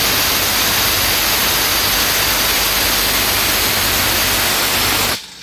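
Loud, steady rattle of a cheap cordless impact wrench sold as a Makita and rated 400 Nm, hammering at full power for about five seconds and then stopping suddenly. It is undoing a nut tightened to 600 Nm, above its rating, and the stop comes as the nut breaks loose.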